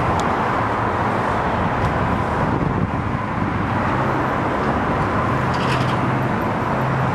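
Steady outdoor traffic noise, with a low hum coming in about halfway through.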